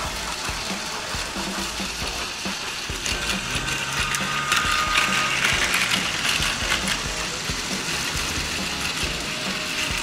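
Battery-powered Plarail toy trains running on plastic track: small motor gearboxes whirring with a fast ticking clatter, louder around the middle as a train passes close.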